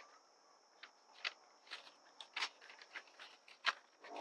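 Scattered small clicks and rustles of a paper strip and a glue stick being handled, with a few sharper ticks among them, over a steady high-pitched drone.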